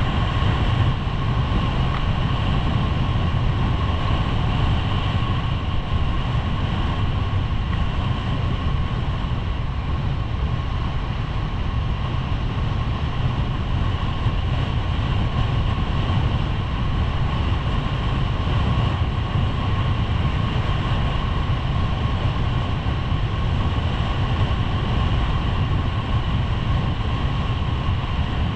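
Skis running fast over groomed corduroy snow, a steady hiss and scrape with heavy wind noise on the microphone.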